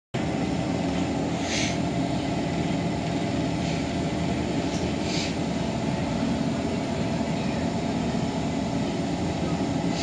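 Steady low hum of a stationary SMRT C151 train's onboard equipment, with brief hisses of air about a second and a half in and again around five seconds.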